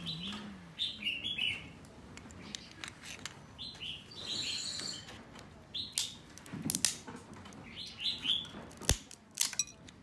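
Steamed crab claw being squeezed in a metal crab cracker: sharp cracks and clicks of shell and metal, loudest near the end. Birds chirp in short bursts several times alongside.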